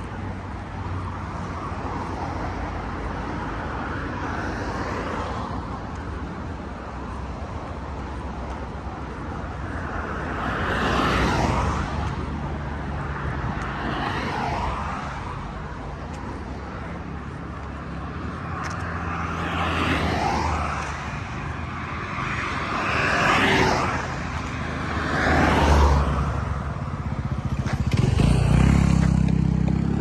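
Road traffic: cars passing one after another on the street alongside, each swelling up and fading away, over a steady low rumble. Near the end a louder engine goes by.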